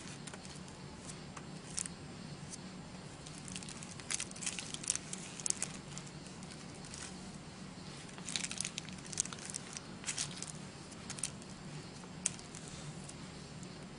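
Flat brush dabbing decoupage sealer onto crumpled tissue paper on thick journal paper: soft, wet crackling and crinkling in irregular bursts, busiest in two stretches near the middle, over a faint steady hum.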